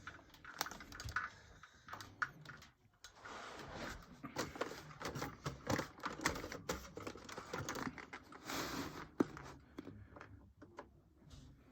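Handling noise: irregular clicks, taps and scratchy rustling close to the microphone.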